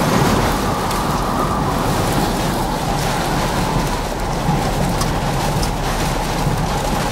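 Heavy rain and strong wind from a tornadic thunderstorm hitting a vehicle: a loud, steady, dense rush of noise without let-up.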